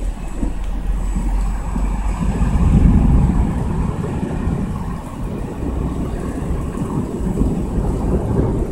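Thunder rolling in a long low rumble that swells to its loudest about three seconds in, with wind buffeting the microphone.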